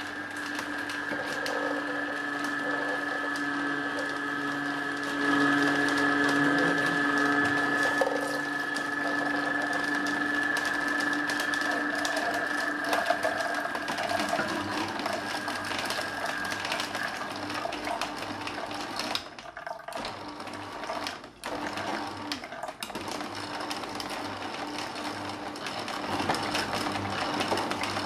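Agaro Imperial slow juicer running: its motor hums and whines steadily while the juicing screw crushes pomegranate arils, with a constant fine crackle of seeds breaking. The whine fades out about two-thirds of the way through, leaving the crackling.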